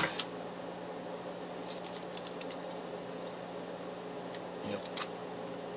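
Light clicks and rattles of the HP DeskJet D1660 printer's plastic parts being handled and pried apart by hand, a few scattered clicks with the sharpest near the end, over a steady low hum.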